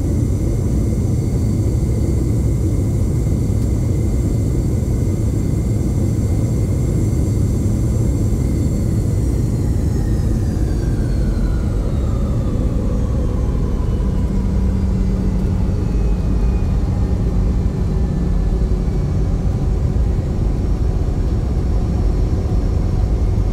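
Rolls-Royce BR715 turbofan engines of a Boeing 717, heard from inside the cabin on the landing roll, over a heavy steady rumble. A high engine whine holds steady, then falls in pitch from about ten seconds in as the engines wind down.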